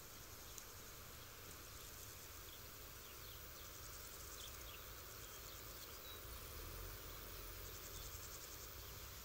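Faint open-field ambience: insects chirring in short trains of rapid pulses, with scattered brief faint chirps. A low steady rumble underneath swells slightly in the second half.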